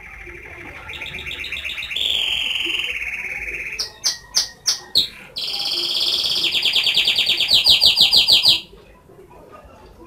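Domestic canary singing one long song of rapid trills that grow louder, broken by a few separate sharp notes about four to five seconds in, then a loud, fast, high trill that stops abruptly near the end.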